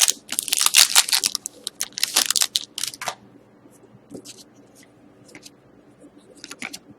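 A hockey trading-card pack wrapper being torn open and crinkled for about three seconds, then faint rustling and clicks as the cards inside are handled.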